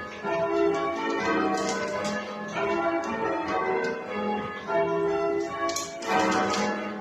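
Church tower bells being change-rung by hand, one bell after another in steady succession.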